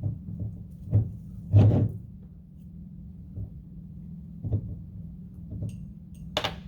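Handling noise as a glass mason jar and twine are worked on a tabletop while a knot is tied: a few scattered knocks and bumps, the loudest about a second and a half in, and a brief sharp rustle near the end, over a steady low hum.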